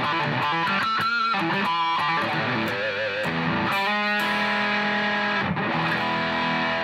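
Electric guitar played through a JOYO Super Lead amp with the distortion turned up: lead notes with wide vibrato. After a brief break about five and a half seconds in, a held note rings on steadily.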